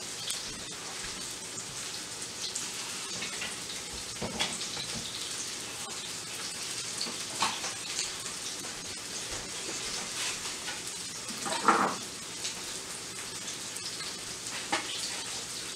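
Flour-dredged rump roast searing in a hot skillet: a steady sizzle and crackle of frying, with a few louder knocks, the loudest about three-quarters of the way through.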